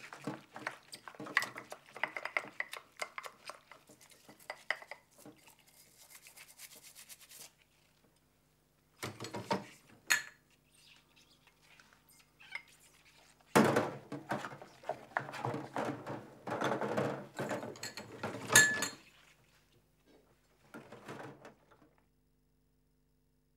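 Clattering and clinking of hard objects in irregular bursts with pauses between them, loudest about two-thirds of the way through, then stopping shortly before the end.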